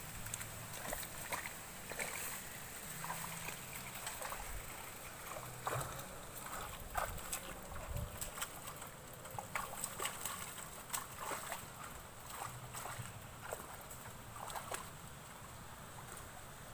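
Bare feet wading through a shallow, muddy stream: light, irregular splashes and sloshes of water.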